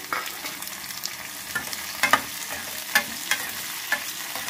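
Sliced onions and green capsicum sizzling in hot oil in a metal kadai, a steady hiss, while a steel spoon stirs them and clinks and scrapes against the pan several times, loudest about two and three seconds in.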